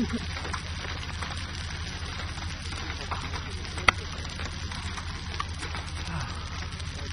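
Steady outdoor storm noise of wind and rain under a low constant hum, with scattered sharp ticks of hailstones striking nearby; the loudest tick comes about four seconds in.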